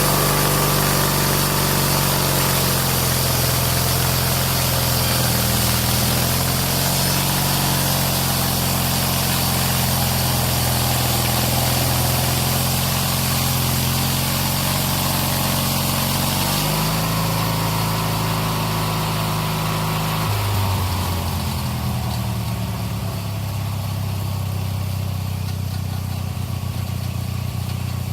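Old Snapper lawn-mower engine running a homemade sawmill, steady under way. Its pitch steps up about two-thirds of the way through, then drops and settles lower, while a high hiss fades away.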